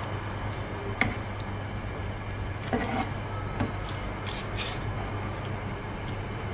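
A spatula turning pieces of pork belly in simmering adobo sauce in a pan: soft wet scrapes and a few clicks against the pan, the sharpest about a second in, over a steady low hum.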